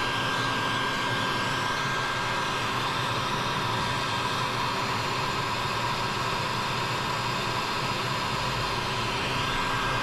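A motor running steadily: an even whooshing drone with a faint constant high whine and a lower hum underneath.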